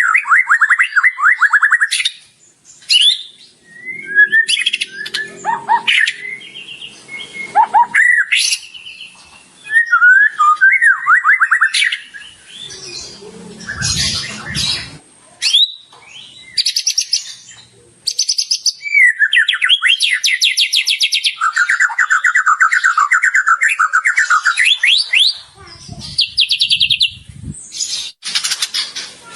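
White-rumped shama (murai batu) in full song: a fast, varied run of trills, rapid repeated notes, sweeping whistles and high chattering phrases, changing from one phrase to the next every second or two.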